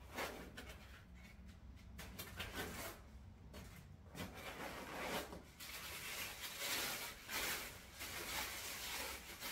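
Packaging rustling and rubbing as a piece is unwrapped by hand, in irregular scratchy bursts.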